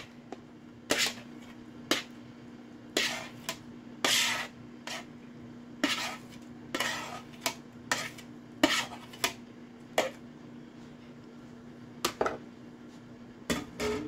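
Metal spoon scraping and clinking against a plastic cooker bowl and a glass mixing bowl as cooked potato cubes are scraped out and tumble in: irregular sharp clicks with a few short scrapes.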